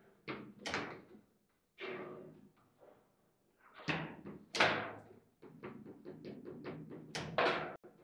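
Table football play: the plastic figures on the steel rods striking the ball and the ball banging off the table's walls, a string of sharp knocks and bangs. A quick run of lighter knocks comes about two-thirds of the way in, and two loud bangs near the end.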